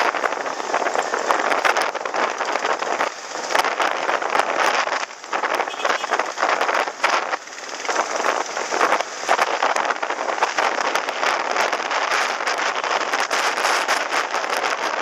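Wind buffeting a helmet-mounted camera microphone on a moving motorcycle: a loud, rough rushing hiss full of crackling, with brief lulls about five and seven and a half seconds in.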